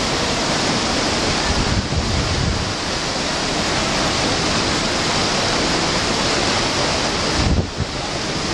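Steady rush of turbulent white water pouring through and below the gates of an old canal lock. Low wind buffets the microphone briefly about two seconds in and again near the end.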